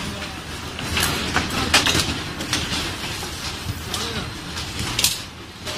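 Shoe factory floor din: a steady mechanical rumble with scattered sharp clicks and knocks from the work on the line, and voices in the background.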